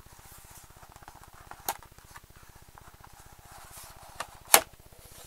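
A cardboard record mailer being opened by hand: faint rustling and scraping of cardboard with a few sharp clicks or snaps, the loudest about four and a half seconds in.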